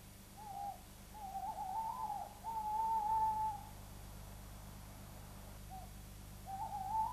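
Owl hooting: a short hoot, then a long wavering hoot and a long steady one a little after a second in, and another hoot starting near the end.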